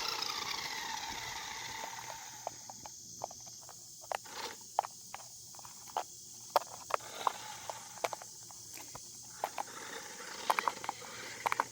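Small electric motor of a toy remote-control car whining, its pitch gliding and the sound fading over the first couple of seconds. After that come scattered sharp clicks and taps.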